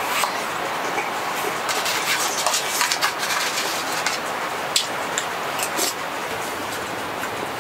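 Rain falling on the fabric of an inflatable tent: a steady hiss dotted with scattered sharp ticks, busiest from about one and a half to three and a half seconds in.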